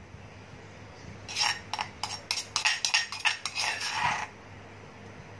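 Clinks and scrapes of kitchen utensils as pounded garlic, fennel seed and small-shrimp paste is scraped off a stone pestle into an aluminium mixing bowl, a run of sharp strokes starting about a second in and stopping near four seconds.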